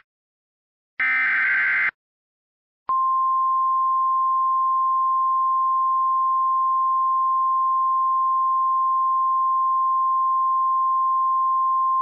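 Emergency Alert System tones. The last burst of the screechy digital data header ends about two seconds in. About three seconds in, the National Weather Service's single steady attention tone (about 1050 Hz) begins and holds.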